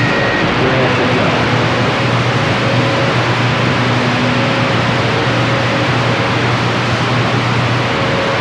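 CB radio receiver with the squelch open, giving out a steady loud static hiss with a low hum underneath while no one is transmitting.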